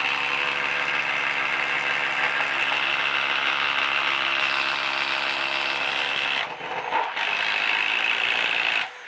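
Milwaukee M18 Fuel impact driver hammering steadily as it bores a 1-1/4-inch speed-bore spade bit through a wooden beam. The hammering eases briefly about six and a half seconds in, picks up again, and stops just before the end.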